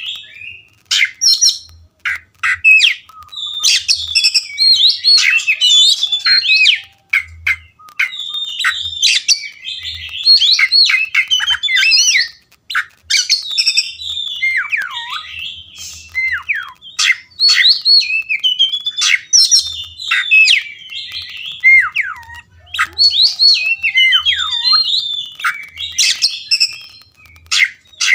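Oriental magpie-robin singing a loud, varied song of sweeping whistles and chirps, phrase after phrase with short pauses between, some notes sliding down in pitch.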